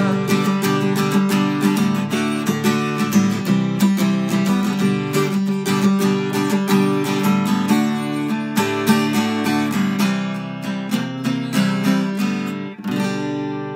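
Acoustic guitar strummed steadily in a fast chord rhythm, with no voice. Near the end the strumming stops and a last chord is left ringing.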